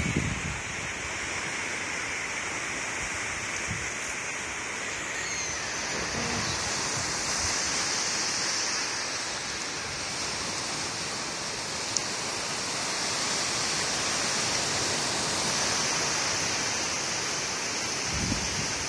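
Small ocean waves washing onto the shore, a steady rushing noise, with a single sharp click about twelve seconds in.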